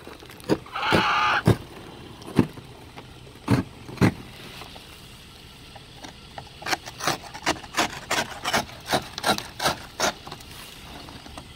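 Ice scraper chipping and scraping thick, crusted ice off a car after a snowstorm: scattered strokes at first, then a steady run of about three scrapes a second.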